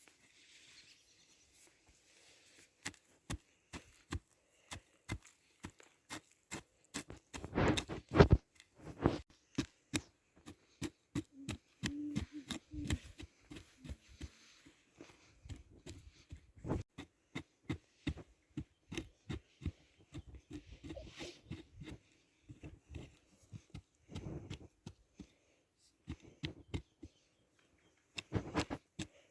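Irregular sharp clicks and knocks, one to a few a second, with a louder dense cluster about eight seconds in and another near the end.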